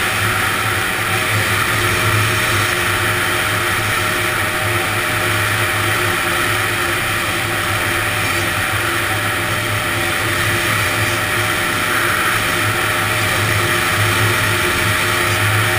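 Honda ATC250R three-wheeler's two-stroke single-cylinder engine running under way at a steady pitch, the trike cruising at an even throttle.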